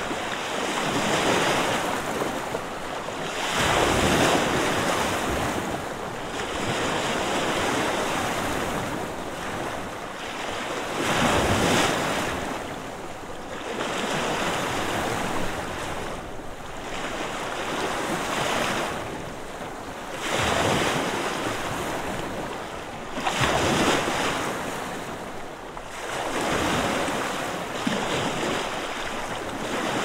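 Lake Superior waves breaking against an old pier: a constant wash of surf, with a wave crashing every few seconds.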